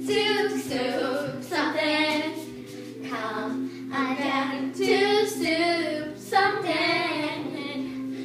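Children singing a little tune together, in short phrases about a second long.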